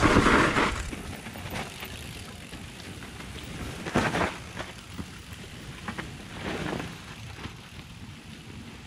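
Mountain bike ridden along a dirt forest trail: steady tyre noise with knocks and rattles of the bike over bumps, the loudest about four seconds in, after a loud rush at the start.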